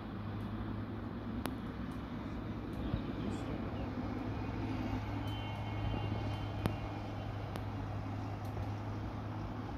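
Distant jet engines of a Boeing 777 freighter, its GE90 turbofans running at low thrust as it taxis onto the runway: a steady, even rumble, with a few faint clicks.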